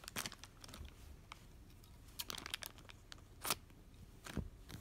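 Clear plastic toy-pack bag being handled, giving a few short, faint crinkles and crackles, the loudest about three and a half seconds in.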